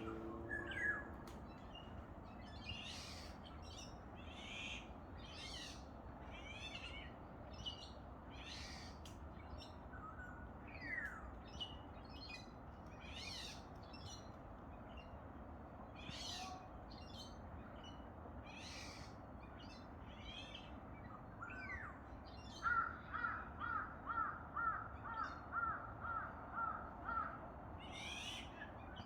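Wild birds chirping with short, high calls scattered throughout. Near the end one bird gives a quick run of about a dozen repeated notes, about two or three a second, the loudest sound here.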